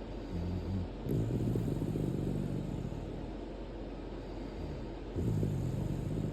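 Shiba Inu snoring in its sleep: low, drawn-out snores, a short one at the start, a longer one about a second in, and another about five seconds in.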